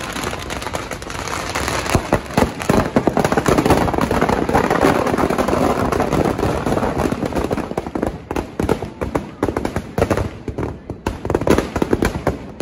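Firecrackers going off in a dense, rapid crackle that thins to scattered separate bangs near the end: the charges packed inside a burning Ravan effigy.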